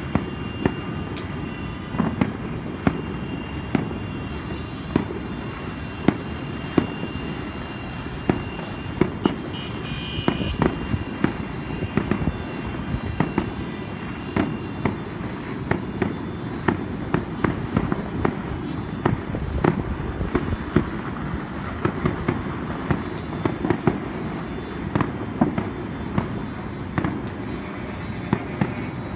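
Distant fireworks and firecrackers going off all over a city, many sharp bangs at irregular intervals, several a second, over a constant low rumble.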